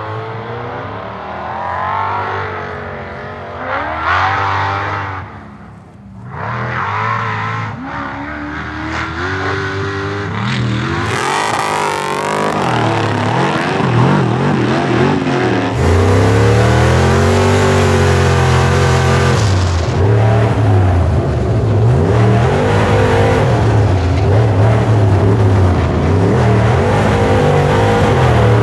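Two off-road race cars' engines at full throttle in a drag run, one a monster buggy on nitrous, revving hard with the pitch climbing and falling again and again through the gears. The sound grows louder and fuller from about halfway through.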